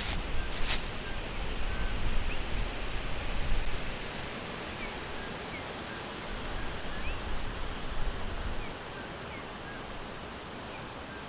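Forest ambience: a steady wash of noise with faint, scattered short bird chirps throughout. A low rumble swells and falls through the first part and eases off about nine seconds in, and a brief crackle sounds near the start.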